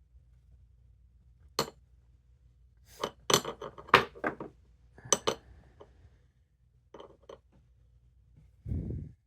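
Small metal lock parts and tools clinking and clicking as they are handled, in irregular clusters, with a dull thump near the end.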